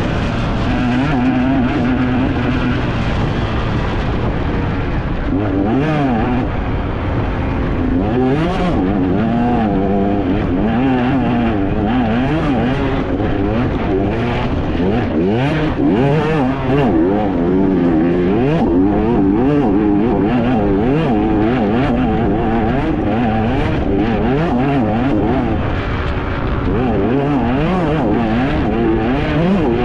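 Enduro dirt bike engine revving up and down without pause under constantly changing throttle, with frequent short knocks and clatter from the bike over rough ground.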